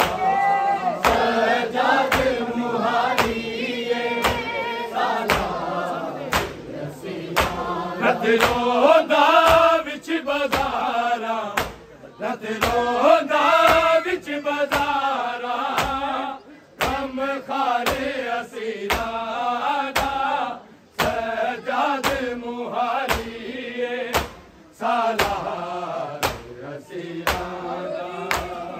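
Male voices chanting a noha, a Shia mourning lament, in unison. Sharp, evenly spaced strikes keep the beat about once a second, typical of matam chest-beating.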